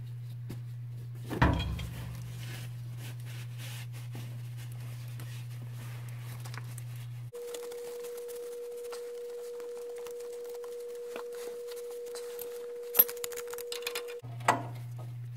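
Steady electrical-type hum that switches abruptly to a higher steady tone about halfway through and back again near the end. Over it are a metallic clank about a second and a half in, then a sharp click and a few clinks near the end as an adjustable wrench is set on a fitting of the tractor's transmission housing.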